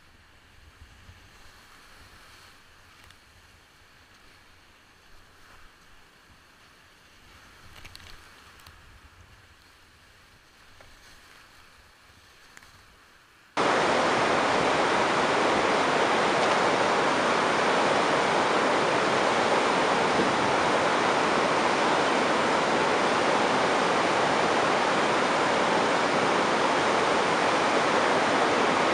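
Big-water whitewater rapid rushing steadily. It comes in loud all at once about halfway through; before that there is only faint, muffled water noise.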